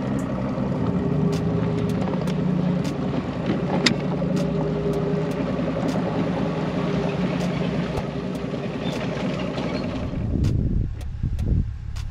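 An engine idling steadily, with light clicks and rattles over it. About ten seconds in it gives way to a lower, uneven rumble.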